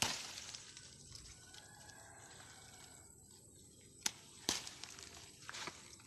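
Leaves and stems rustling close to the microphone as a hand pushes through leafy plants, loudest right at the start, with a few sharp clicks about four and five seconds in.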